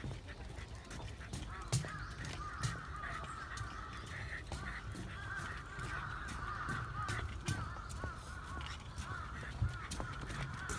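A flock of birds calling over one another in a dense, wavering chatter that sets in about two seconds in. Scattered sharp clicks of steps on a wooden boardwalk sound through it.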